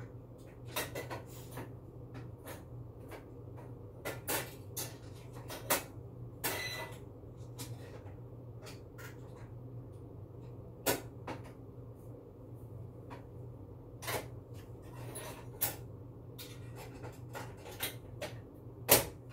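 Scattered clicks and knocks of cookware and utensils being handled at an electric stove, over a steady low hum. The loudest knock comes near the end.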